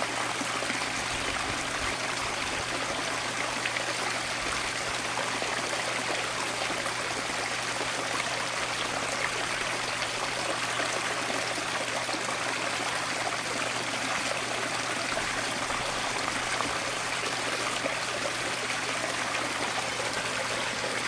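Small rock waterfall in a backyard pond splashing steadily, water trickling over the stones and falling into the pond.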